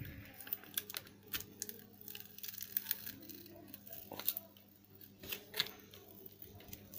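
Faint, scattered small clicks and scrapes as a cracked phone display is pried and peeled off its frame against its adhesive tape, over a faint steady hum.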